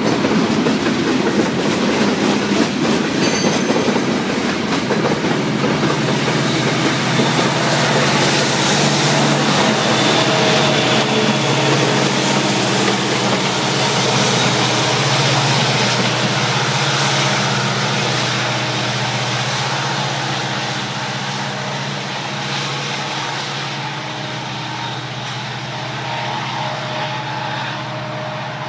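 Freight train with diesel locomotives rolling past: wheel and rail noise under the steady drone of a locomotive engine. The whole sound slowly fades and loses its hiss as the train draws away.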